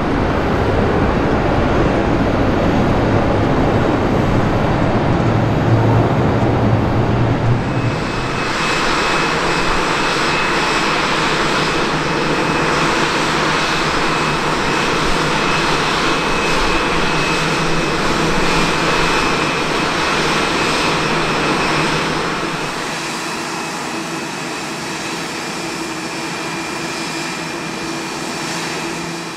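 Jet engines of a Japan Airlines Boeing 787 at takeoff power as it climbs away, a loud deep rumble. About eight seconds in this gives way to a steadier jet whine with a high steady tone, which drops to a quieter hum a little after twenty seconds.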